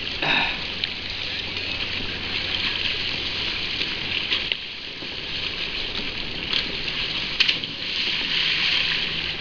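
Sea water sloshing and lapping around a kayak and against rocks, a steady hissing wash. There are a few sharp knocks, and about seven seconds in a person jumping off the rocks hits the water with a splash.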